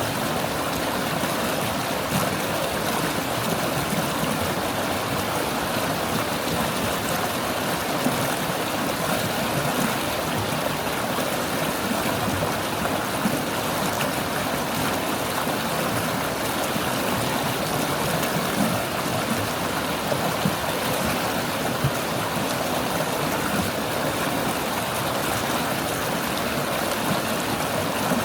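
Forest stream babbling and murmuring steadily as the water flows over stones.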